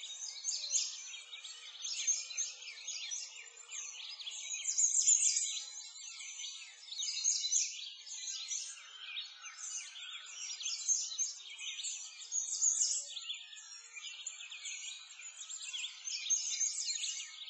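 Chorus of many small birds chirping and twittering without pause, all high-pitched calls.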